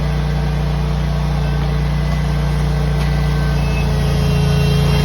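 Ditch Witch vacuum excavator running steadily, its engine and vacuum blower droning while it sucks water out of the dig. It grows a little louder and hissier near the end.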